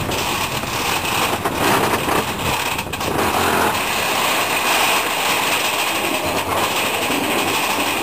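Big Thunder Mountain mine-train roller coaster running along its track, heard from aboard: a steady rattle of the train's wheels on the rails, with a few brief clacks.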